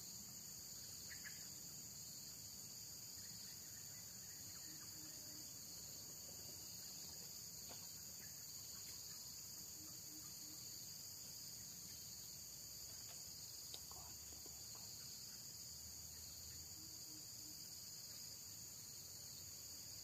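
A faint, steady, shrill chorus of insects droning on a few high pitches.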